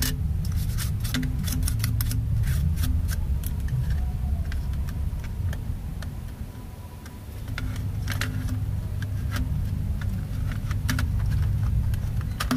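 Small clicks, taps and light clatter of metal and plastic laptop parts being handled as the hard-drive caddy is fitted and screwed in, in two busy spells, over a steady low rumble.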